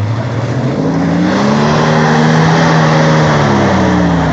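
Jeep Wrangler TJ engine revving hard under load while climbing an off-road obstacle: the pitch rises for about two and a half seconds, holds, then falls away near the end, with a loud rushing noise over it.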